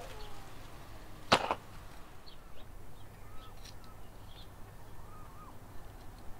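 Baked salt crust on a whole fish being broken off and handled with metal tongs: one sharp crack about a second in, then a few faint light clicks.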